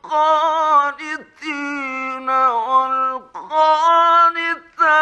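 A male Quran reciter chanting in a melodic, drawn-out style, with long held notes that bend and turn. The phrases are broken by short breaths about a second in, past the middle and near the end. It is an old 1950s radio recording.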